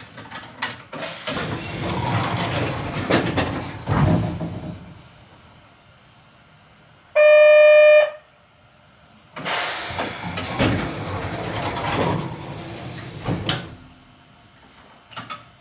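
Narrow-gauge electric train heard from on board: stretches of rattling, clicking running noise, broken about seven seconds in by one loud, steady, single-pitched horn blast lasting about a second.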